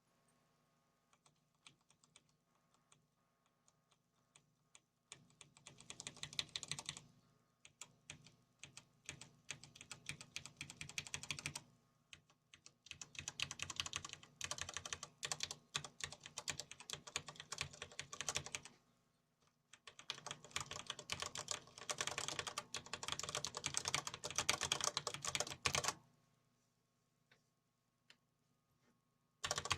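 Typing on a DNS K-1 Extreme mechanical keyboard with Cherry MX Black linear switches: a few single key presses, then several runs of fast typing with short pauses between them, and typing again at the very end.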